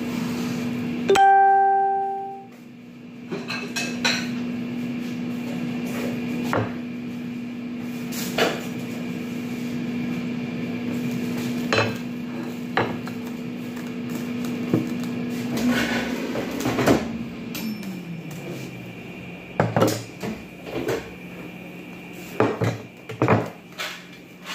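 Plastic cling film being pulled from its box, crinkled over a ceramic bowl and cut with kitchen scissors: scattered crinkles, snips and light knocks, busier near the end. A steady low appliance hum runs underneath and winds down about two thirds of the way through. A short pitched tone sounds about a second in.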